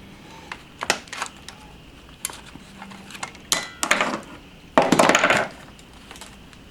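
Small plastic and metal clicks and clatter as the opened remote control is handled and its displaced battery terminal is worked back into place. There is a longer scraping rattle a little under four seconds in and another about five seconds in.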